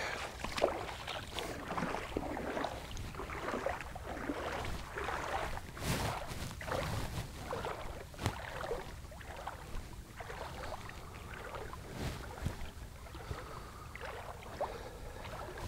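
Irregular light sloshing and splashing of legs wading through shallow, calm water, busier in the first half.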